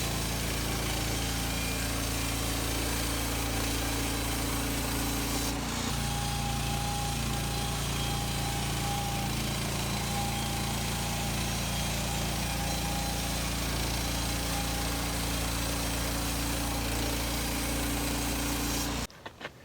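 Woodland Mills HM130 Max portable bandsaw mill running, its gas engine driving the band blade through a red pine log. The engine note shifts about six seconds in, and the sound cuts off abruptly near the end.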